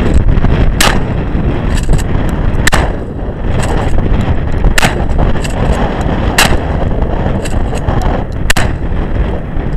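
Mossberg 500 12-gauge pump shotgun firing five shots, about one every two seconds, with wind buffeting the microphone between them.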